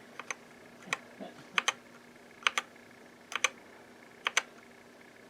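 Keys on a DK61 mechanical keyboard fitted with new keycaps being pressed and released, a pair of sharp clicks roughly once a second, as a function-key combination cycles the RGB lighting modes. A faint steady hum underneath.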